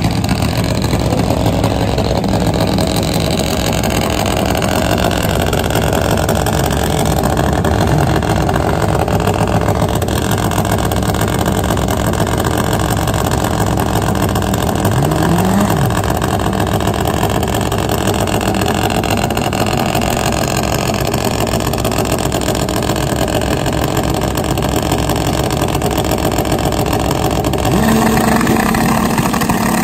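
Two drag-bike engines running at the starting line: a turbocharged Kawasaki KZ and a nitro-burning Harley-Davidson. The sound is loud and steady, with a brief rev up and down about halfway through and a steadier, higher engine note coming in near the end.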